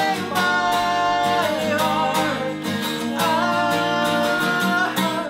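Acoustic guitar strummed steadily under a male voice singing long held notes, in an acoustic folk-punk song; the music cuts off abruptly at the end.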